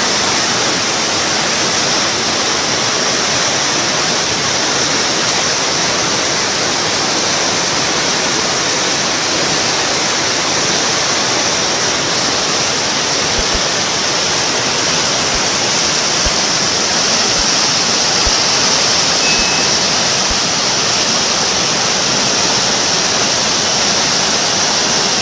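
Muddy floodwater in a swollen wadi rushing past, a loud, steady rush of water that never lets up.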